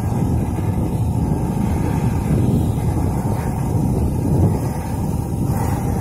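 Diesel engine of a heavy MAZ six-wheel-drive truck running steadily under load as the truck crawls through deep mud and slush pulling a loaded lowboy trailer.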